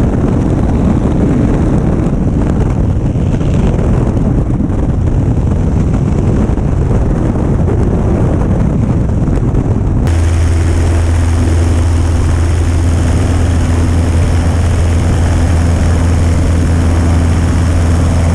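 Cessna 150's four-cylinder engine and propeller at takeoff power during the ground roll, with heavy rushing noise over it. About ten seconds in the rush drops back and a steady low propeller drone comes to the fore.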